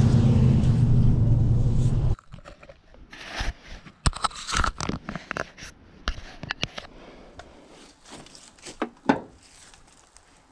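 Pickup truck engine running, heard from inside the cab as a steady low hum that cuts off abruptly about two seconds in. After that, scattered crunching footsteps with clicks and rustles.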